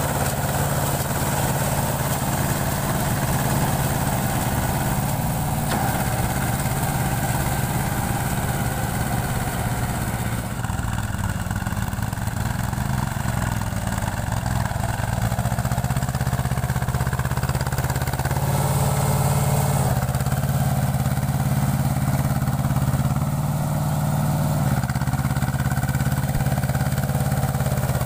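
Mahindra Jivo 245 DI mini tractor's two-cylinder diesel engine running steadily under load as it pulls a rotary tiller through wet paddy mud.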